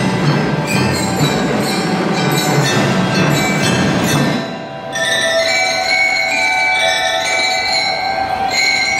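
A drum and lyre corps playing: snare and bass drums with metal bell lyres. About halfway through, the drums stop and the bell lyres ring on alone in held notes.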